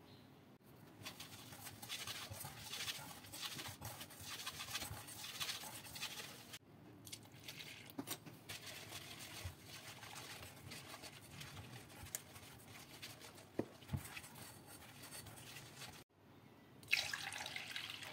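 Silicone whisk beating a wet cocoa batter in a nonstick pot, a scratchy, sloshing stir with a few sharp knocks of the whisk against the pot. Near the end milk is poured from a glass into the batter with a short splashing pour.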